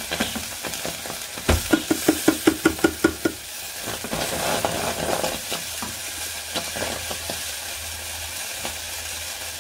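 Tomato ketchup sizzling in a small stainless steel pot as it is stirred with a wooden spoon, the start of a currywurst sauce. About a second and a half in, a quick run of about ten short squelchy pulses as the plastic squeeze bottle is pressed out into the pot.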